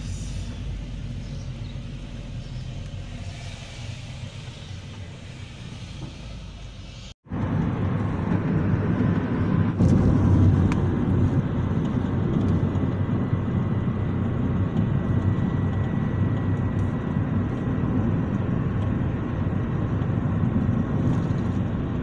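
MG6's 15E4E 1.5-litre turbo petrol four-cylinder engine idling steadily, a little noisy with its air cleaner not yet refitted. About seven seconds in the sound cuts briefly and resumes louder and closer, with a faint steady whine over the low rumble.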